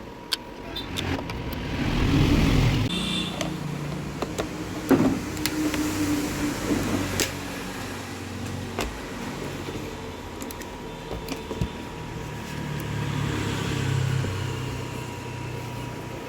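Small electric motors whirring in uneven spells that swell and fade, with scattered sharp clicks and knocks.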